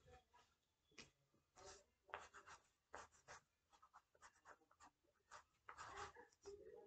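Faint pencil scratching on a sheet of paper as someone draws: short, irregular strokes several times a second, with a longer stroke about six seconds in.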